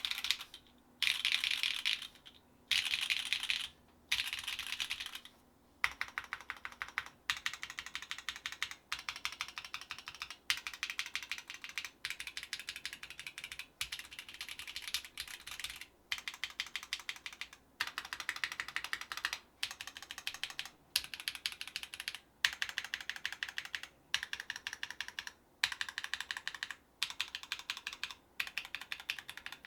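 Fast typing on a Driftmechanics Forever 65 mechanical keyboard with unlubed Gateron Deepping 4 mm switches on a POM plate, under GMK doubleshot keycaps. The keystrokes come in quick runs of clicks about a second long, with short pauses between runs.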